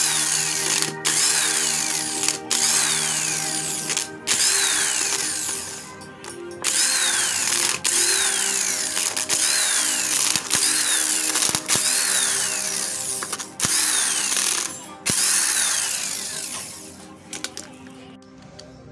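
Electric impact wrench backing out the head bolts of a car AC compressor, running in about ten bursts of a second or two each with short stops between bolts. It goes quiet a couple of seconds before the end.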